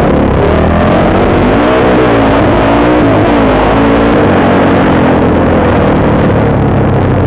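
Off-road vehicle engine running hard, its pitch rising and falling repeatedly as the throttle is worked.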